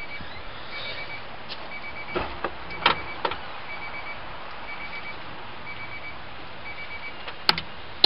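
A car's electronic warning chime beeping steadily about once a second, with a few clicks and knocks in between, the sharpest one near the end.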